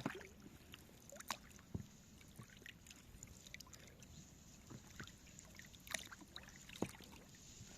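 Quiet water sounds around a small boat on a river, with a few scattered light knocks and splashes from the boat and its gear.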